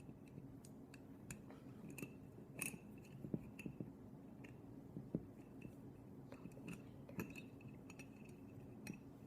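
Faint, irregular clicks and light taps of the cheese slicer's metal rod and wire being handled against the marble board while being fitted into its slot.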